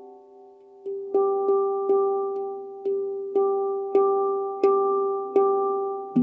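Stainless-steel handpan played with the fingers. The last notes die away, then about a second in the player starts striking one note over and over in a steady pulse, roughly two strikes a second. Each stroke rings on into the next.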